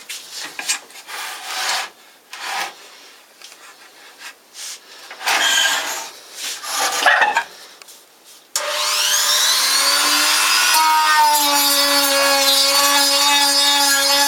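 Irregular scraping and rubbing on wood, then about eight and a half seconds in a power tool's motor starts abruptly, spins up with a brief rise in pitch, and runs steadily.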